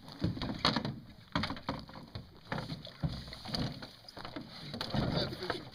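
Hollow knocks and scrapes of a canoe as a man climbs aboard at a rocky shore and pushes off: the hull bumping and grinding on rocks and the paddle clunking against the boat, irregular, about one or two knocks a second.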